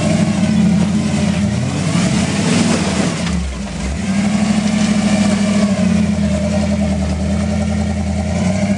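Off-road 4x4's engine working under load while rock crawling, revving up and easing off, with a brief drop in engine speed about three and a half seconds in.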